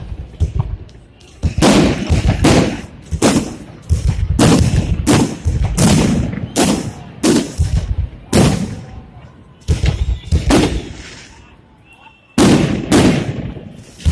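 Fireworks salute shells bursting in quick, irregular succession, each sharp bang followed by a trailing echo. There is a short lull about three-quarters of the way through before two more bursts.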